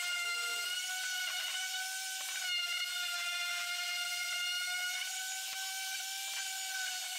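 Electric orbital sander running against the wooden birdhouse, a steady high-pitched whine that holds its pitch.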